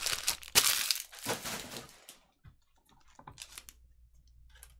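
Rustling and crinkling from trading cards being handled off to the side, loudest with a sharp crackle about half a second in, fading after about two seconds to a few faint taps and clicks.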